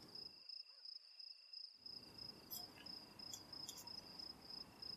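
Faint crickets trilling: a high, steady, pulsing chirp over quiet room tone, whose background hiss drops out briefly for about a second near the start.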